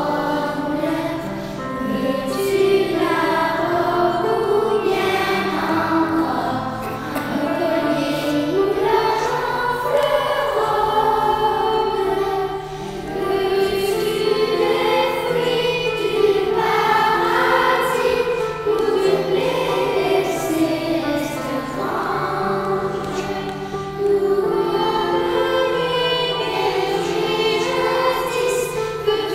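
Third-grade children's choir singing a Christmas song together over instrumental accompaniment with held low notes.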